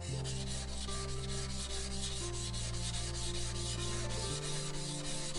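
Steel blade of a single-bevel Japanese kitchen knife being ground on a soaked Japanese water stone, making a steady scraping rub. Metal is being removed as the edge is reprofiled.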